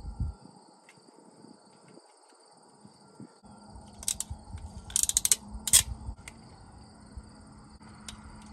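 Ratcheting wire crimper clicking in quick runs as it squeezes a heat-shrink butt connector onto a trailer brake wire, the clicks coming in three short bursts a little after halfway. A faint steady high whine runs underneath.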